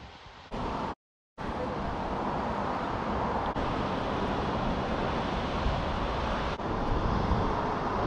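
Steady outdoor rushing noise, with a short dead-silent gap at an edit cut about a second in.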